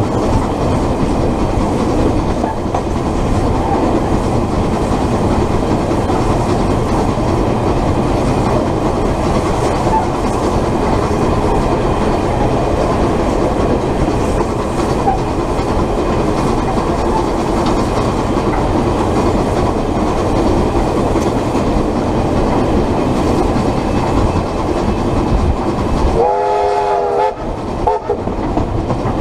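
Steady rumble and rattle of a train running along the track, heard from the front of a locomotive coupled close behind steam locomotive Ab 608's tender. Near the end a locomotive whistle sounds in a few short blasts.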